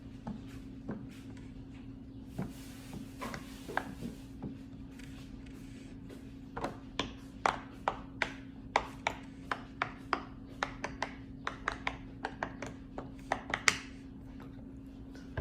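Silicone pop-it fidget toy having its bubbles pressed one after another: a few scattered pops and a brief rustle of handling at first, then a quick run of sharp pops, about two to three a second, from about the middle until near the end. A steady low hum sits underneath.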